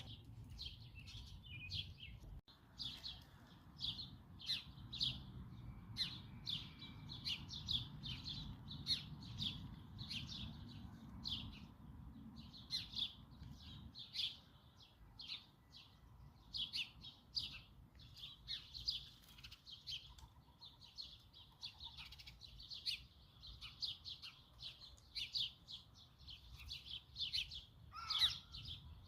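Birds chirping: many short, high calls in quick succession throughout, over a faint low background rumble, with one louder call near the end.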